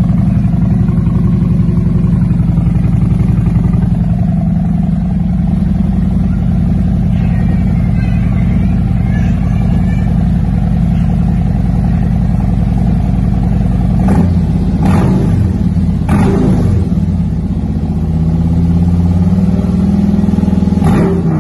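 A 2018 Harley-Davidson Freewheeler's Milwaukee-Eight V-twin runs through 4-inch DNA slip-on megaphone mufflers with a deep sound; the stock catalytic converters are still in place. It idles steadily, then about two-thirds of the way in it is blipped several times, the pitch rising and dropping back.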